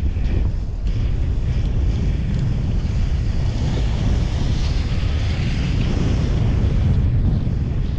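Steady heavy wind buffeting on the action camera's microphone, a deep rumble over the rush of sea water under a wingfoil board.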